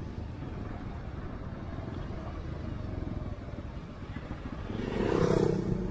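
Motorcycle running steadily at riding speed, heard from the rider's seat as a low, even rumble. About five seconds in a louder rush swells up and fades within a second.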